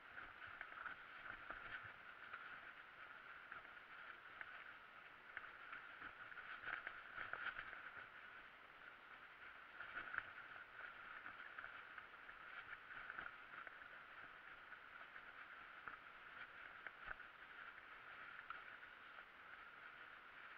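Faint rattling and knocking of a mountain bike riding over a bumpy dirt singletrack, with a steady hiss underneath; the loudest knocks come about seven and ten seconds in.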